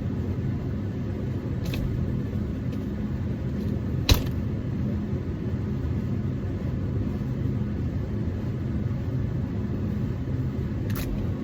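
Steady low mechanical rumble with a constant hum, and a single sharp click about four seconds in.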